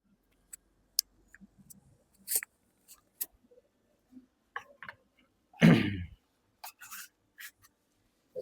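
Scattered small clicks and rustles of handling and movement on a treatment table, with one louder thump-like noise lasting about half a second a little after halfway.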